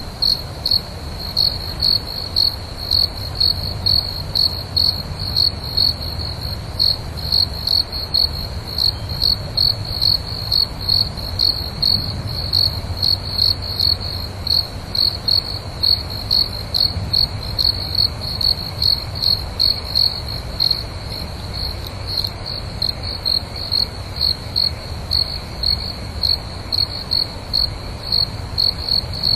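A cricket chirping in a steady, even rhythm of about two chirps a second, over faint low background noise.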